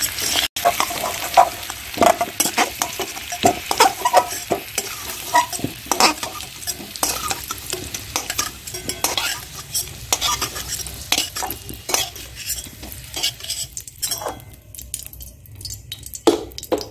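Fried potato chunks sizzling in hot mustard oil in a kadai while a metal spatula scrapes and clacks against the pan, lifting the potatoes out. The scraping thins out and the frying is quieter over the last few seconds, with one sharp clack near the end.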